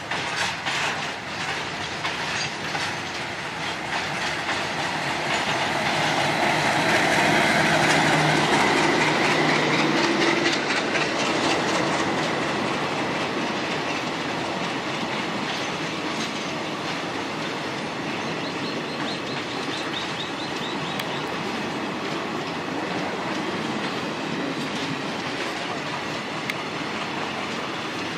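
Diesel-hauled train running along the rails, its wheels clicking over the rail joints. It grows louder to a peak partway through, then settles into a steady running sound.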